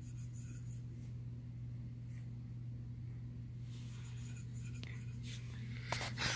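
Faint scraping and light taps of a paintbrush swirled in a small cup of water, over a steady low hum, with a short click near the end.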